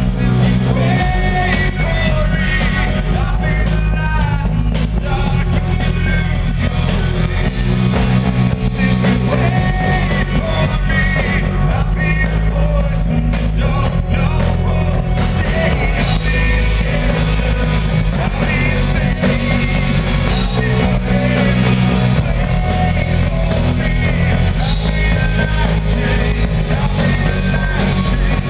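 Live rock band playing loudly with a male lead vocal over electric bass, drums and keyboards, the low end heavy and dense throughout.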